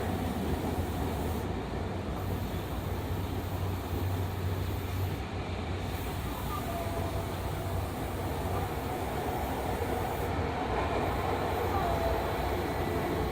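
Fukuoka City Subway 2000 series train running through the tunnel, heard from inside the car: a steady rumble of wheels on rails. Faint short tones come and go over it.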